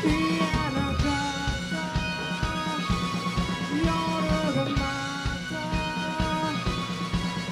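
Rock band playing live through an instrumental passage with no singing: held lead notes that slide in pitch, over a steady drum beat and bass.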